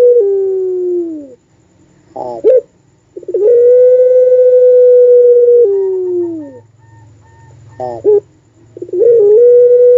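Puter pelung, a long-voiced domestic Barbary dove, giving its drawn-out coo over and over: a brief stuttering note, then a long steady tone held for over two seconds, dropping and sliding down at the end. Two full calls sound, with a third beginning near the end.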